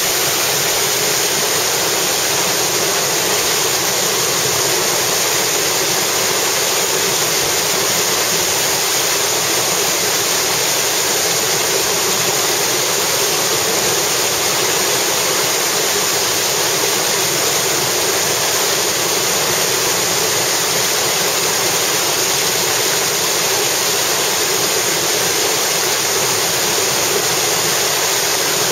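Whitewater of a river waterfall rushing loudly and steadily, with no break or change.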